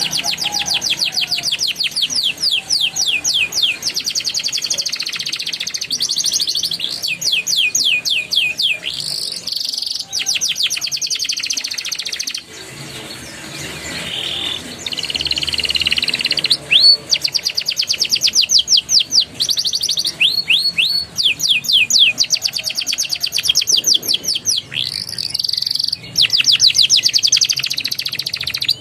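Young domestic canary singing: long, fast trills of rapidly repeated notes in rolling phrases, with a quieter break about halfway through.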